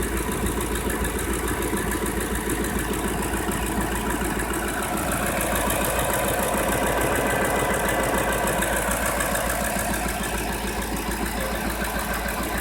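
Ford F-150 engine running near idle, with the strange noise that the owner says it makes only on a cold start. It runs steadily and grows a little louder in the middle for a few seconds before settling back. The owner suspects oil is not reaching part of the engine.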